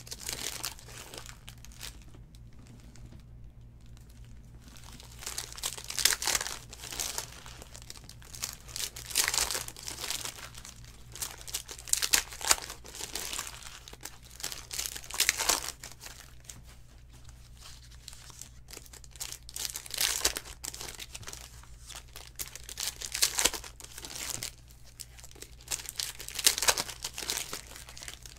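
Foil wrappers of 2019 Donruss Optic trading-card packs being torn open and crinkled by hand, in repeated bursts of crackling every few seconds. A steady low hum runs underneath.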